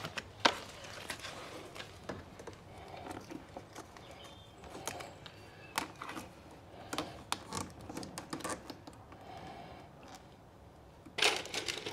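Hands peeling and wrapping adhesive warning labels around solar DC cables: scattered light clicks and rustling of label backing and cables, with one sharp click about half a second in and a louder flurry of rustling near the end.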